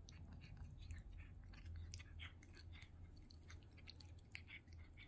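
Cat licking and chewing at a Dreamies meaty cat-treat stick held out to it: faint, quick, irregular wet clicks and smacks, several a second.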